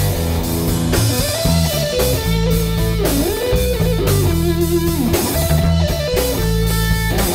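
Live rock band playing: electric guitars over bass guitar and drum kit, with a lead melody that slides and bends between notes.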